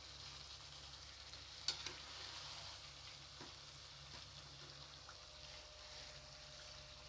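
Chicken and potato masala sizzling quietly in a kadai while being stirred with a metal spatula, with a sharp clink of the spatula against the pan about a second and a half in.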